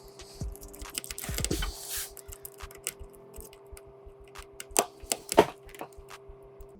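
Small clicks and taps of a precision screwdriver and metal tools working on a smartphone's tiny screws and internal parts, irregular, with two louder clicks near the end, over a faint steady hum.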